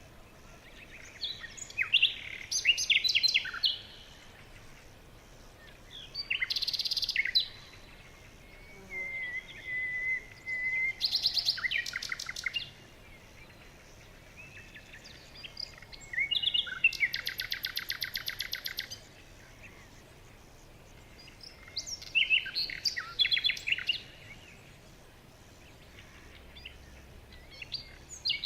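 Songbirds singing in short phrases of quick chirps and trills, about six phrases with quiet pauses of a few seconds between them; one phrase holds a fast, even trill of rapid repeated notes.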